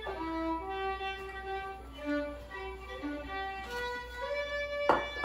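Background music: a violin melody of held notes moving step by step. A sharp knock about five seconds in.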